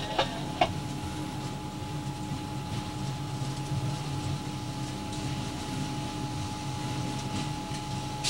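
Steady cab noise of an EMD GF6C electric locomotive rolling slowly: a low rumble with a constant hum. Two sharp clicks about half a second apart come near the start.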